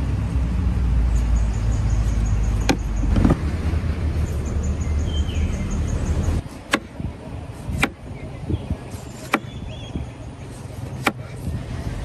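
A kitchen knife cutting through a crusty flat loaf, knocking sharply on the wooden cutting board about six times. A low, engine-like rumble runs under the first half and cuts off suddenly about halfway through.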